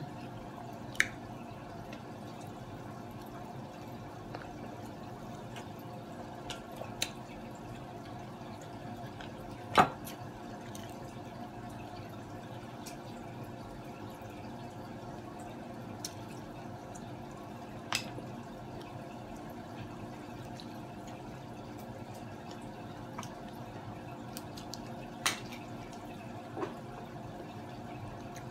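Steady trickling and humming of an aquarium filter, with a handful of sharp clicks and cracks of blue crab shell being broken and picked apart by hand. The loudest crack comes about ten seconds in.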